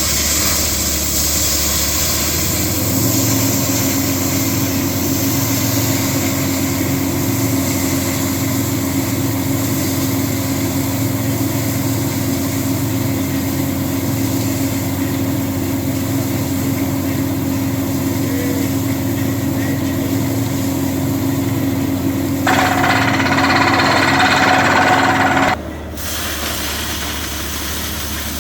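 Borehole drilling rig and its air compressor running steadily: a diesel engine drone under a loud hiss of compressed air. About 22 seconds in, a louder rush of air lasts roughly three seconds and then cuts off.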